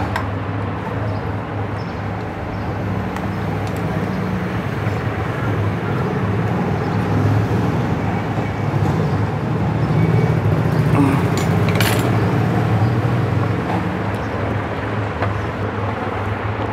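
Steady low rumble of background motor traffic, with a single sharp click about twelve seconds in.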